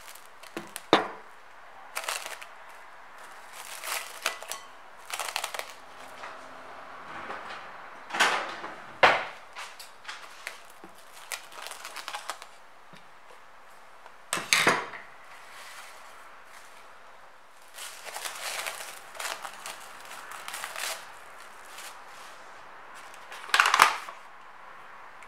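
Plastic cling film crackling and rustling in short, irregular bursts as it is handled over a glass bowl of bread dough, with a few sharp clicks among them.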